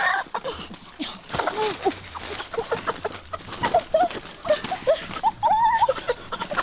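Chickens squawking in alarm as they are grabbed by hand, with many short cries through the struggle. Wings flap and dry leaves and undergrowth rustle in the scuffle, loudest at the very start.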